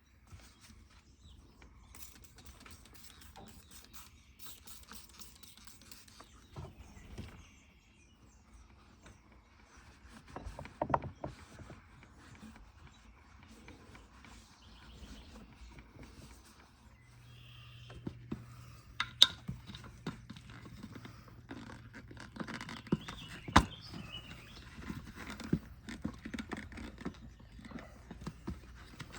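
Bicycle parts and hand tools being handled on the workbench: scattered clicks, taps and clanks, a few of them sharper and louder. A low steady hum comes in about halfway through and stays under the clatter.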